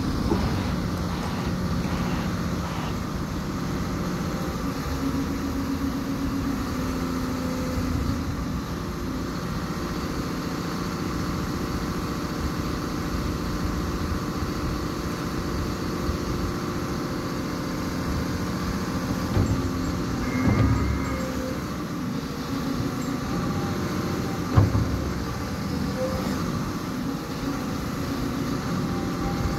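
Caterpillar 330F L tracked excavator's six-cylinder diesel engine running steadily while the boom, stick and bucket are worked hydraulically. Two short thumps come in the second half.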